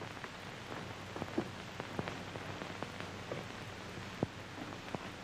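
Soundtrack noise of an old 1939 film print: steady hiss and a low hum, with irregular crackles and pops scattered through it.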